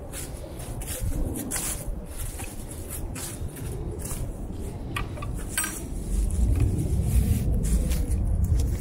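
Footsteps on dry grass and dead leaves, irregular crackly steps, with wind rumbling on the microphone that grows stronger in the second half.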